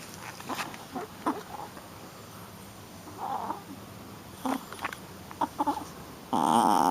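Shih Tzu puppy making short play growls and yips, with one louder, longer call near the end.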